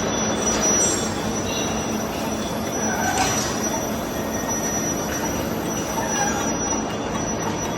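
Manual machine tool cutting metal: a steady rough noise with a thin, high-pitched whine held throughout.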